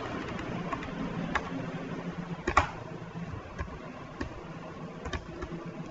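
Irregular keystrokes on a computer keyboard as text is typed and deleted, over a low steady hum; a couple of louder clicks close together about two and a half seconds in.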